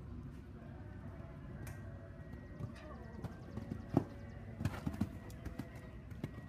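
Show-jumping horse cantering on sand footing and jumping a fence: a sharp knock about four seconds in as it goes over, then a cluster of heavy hoof thuds on landing. A steady low background rumble runs underneath.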